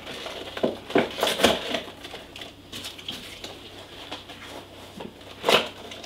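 Small cardboard product box being handled and opened by hand: scattered taps, scrapes and rustles of cardboard, with a cluster of knocks about a second in and a louder knock near the end.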